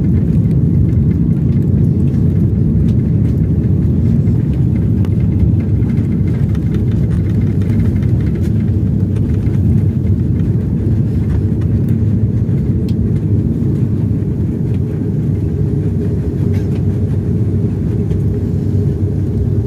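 Steady low rumble of an airliner cabin as the jet rolls along the runway just after touchdown, easing slightly after about fourteen seconds.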